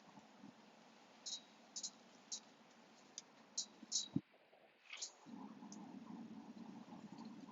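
A series of short, sharp clicks, about seven in two and a half seconds, followed by a low steady hum that sets in about five seconds in.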